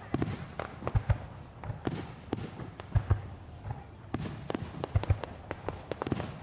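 Aerial fireworks bursting in quick irregular succession: a rapid run of sharp bangs and crackles, with a few deeper booms among them.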